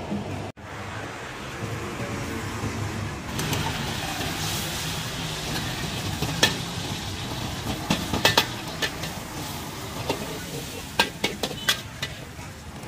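Oil sizzling in a wok over a gas burner, while a metal spatula stirs and scrapes. The spatula clanks sharply against the wok several times in the second half.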